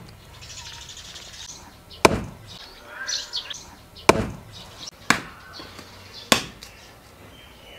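Four sharp chopping blows, one to two seconds apart, as an axe splits a firewood log and a machete hacks a thin branch. Birds chirp between the blows.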